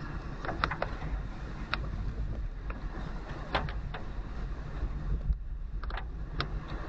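Steady low road and engine rumble of a car driving in the rain, with scattered sharp taps of raindrops hitting the car at irregular moments.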